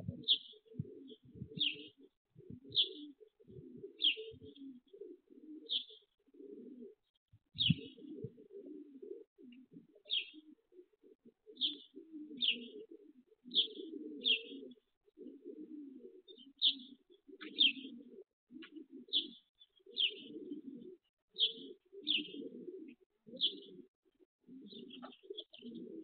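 Racing pigeons cooing steadily, with a small bird chirping about once a second over the top.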